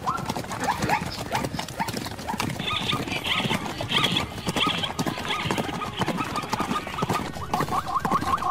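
Zebra calling in rapid runs of short, high barking yelps, about four to five a second: the zebra's alarm call. Under it are scuffling knocks and hoof noise from the struggle.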